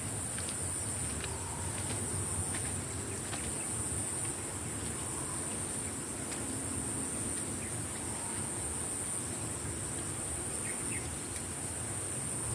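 Steady high-pitched drone of an insect chorus in the field, over a low steady rumble.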